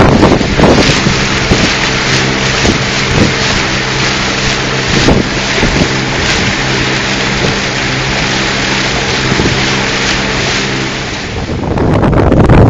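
A sailing catamaran's engine runs at a steady hum under way while motor sailing, with wind buffeting the microphone and water churning in the wake. About eleven seconds in the engine tone drops away and wind noise on the microphone takes over.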